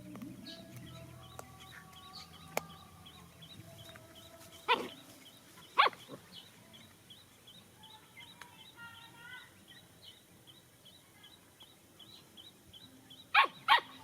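A dog barking: single barks about four and a half and six seconds in, then two quick barks near the end.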